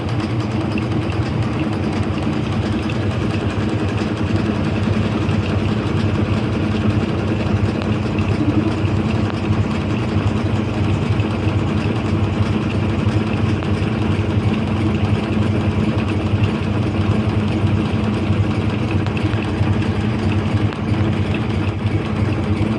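Washing machine running a fast spin, a loud steady mechanical hum with a few low tones held throughout.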